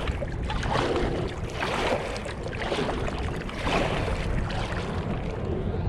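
Kayak paddle strokes swishing and splashing in the water, one every second or so, over a steady low rumble of wind on the microphone.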